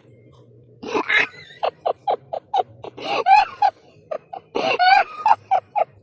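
A voice cackling in rapid bursts of short pitched pulses, several a second, starting about a second in, with short pauses between bursts.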